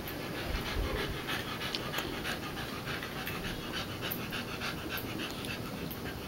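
A dog panting rapidly and steadily.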